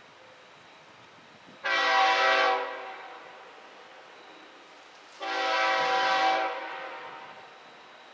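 Diesel freight locomotive's air horn sounding two long chord blasts, the second beginning about three and a half seconds after the first, each trailing off slowly.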